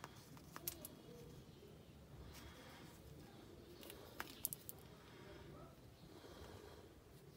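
Quiet handling noise from a wristwatch and its strap being turned and flexed in the hands: faint rubbing with two sharp clicks about half a second in and a quick run of three or four clicks just after four seconds.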